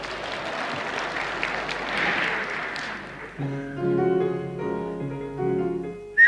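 Audience applause for about the first three seconds, then piano accompaniment comes in with chords. A short, loud whistled note sounds at the very end.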